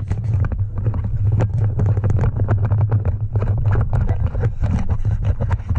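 Small quadcopter drone carrying the camera: its motors and propellers make a steady low hum with a fast, irregular rattling of clicks over it.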